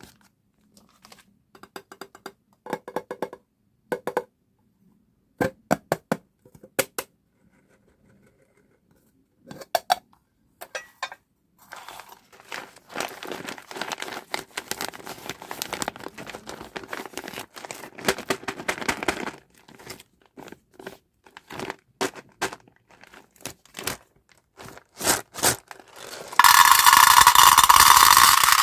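Plastic candy wrappers being handled and opened: scattered crinkles and clicks, a busier stretch of crinkling midway, then a loud steady tearing sound lasting about two seconds near the end.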